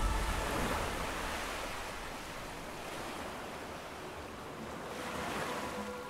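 Ocean surf: a steady wash of waves that eases off mid-way and swells again toward the end.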